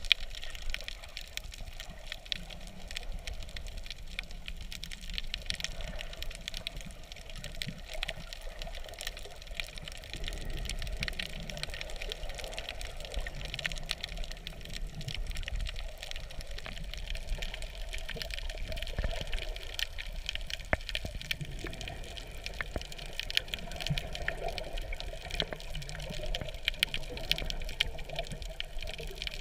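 Underwater ambience picked up by a submerged camera: a muffled, steady rush of water with a low rumble and many faint crackling clicks throughout, and one sharp knock right at the start.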